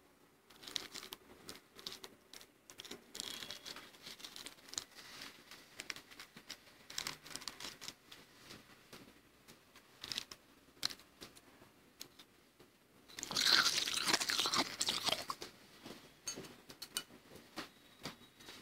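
Freezer frost being chewed close to the microphone: a soft, crackly crunching that goes on throughout and is loudest and densest for a couple of seconds about two-thirds of the way through.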